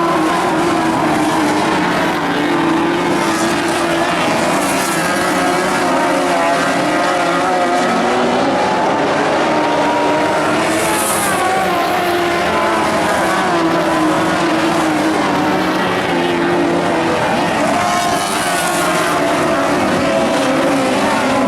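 Several Lightning Sprint race car engines running hard together during a dirt-track heat, their pitches rising and falling in waves as the cars accelerate and back off.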